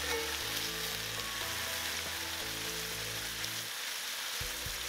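Chicken thighs searing in hot vegetable oil in an enameled pan over medium-high heat, a steady sizzle.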